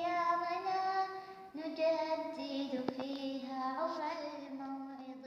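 A female voice singing an Arabic nasheed alone, drawing out long held notes on the closing line and growing quieter toward the end.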